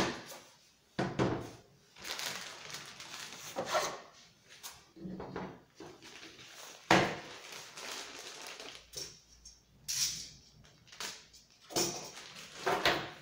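Unboxing handling noises: knocks as the chainsaw and its guide bar are picked up and set down on a wooden workbench, and the packing wrapper rustling several times.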